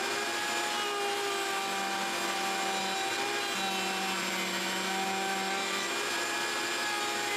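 A table-mounted router and a shop vacuum running together with a steady whine, as a square wooden board is fed along the fence past the bit and the vacuum pulls dust through the fence port.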